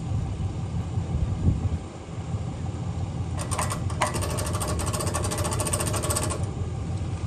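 Pickup truck engine idling with a steady low rumble. About three and a half seconds in, a fast, even metallic ratcheting clatter from the boat trailer's winch runs for about three seconds and stops.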